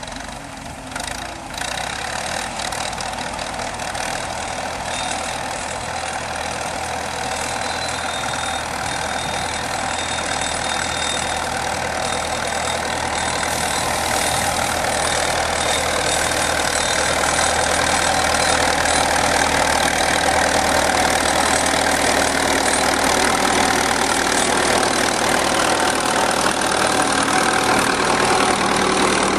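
Vintage tractor engine running steadily while towing a reaper-binder, with the binder's cutter and mechanism clattering over it. The sound grows steadily louder.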